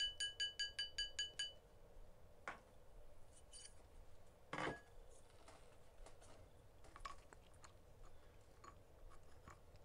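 Small metal hammer tapping a silver ring round on a steel ring triblet: quick, even taps, about five a second, each with a bright ringing tone, stopping about a second and a half in. After that come a few light clicks and one duller knock as the triblet and ring are handled.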